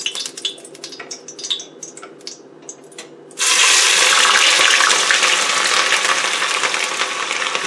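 Hot cooking oil in a pot crackles lightly, then about three and a half seconds in chopped onion goes in and the oil breaks into a loud, steady sizzle of frying.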